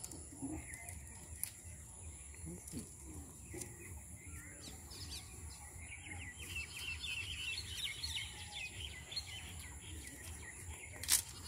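Small birds chirping in quick twittering runs, busiest in the second half, over a faint background hum. One sharp click near the end.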